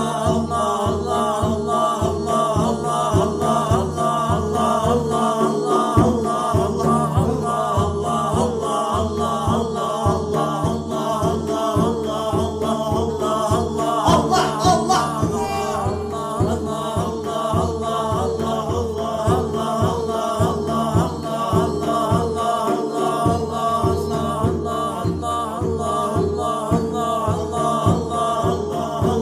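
Chanted Islamic dhikr repeating the name of Allah in a steady rhythm, the voices carried over an evenly pulsing low beat.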